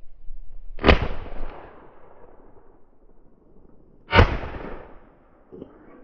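Two shotgun shots about three seconds apart, each a sharp crack that trails off over roughly half a second.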